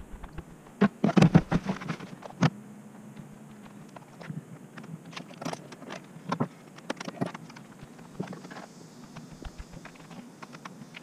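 Clatter and knocks of a plastic kayak and its gear being handled. A cluster of louder knocks comes about one to two and a half seconds in, then scattered lighter clicks and taps.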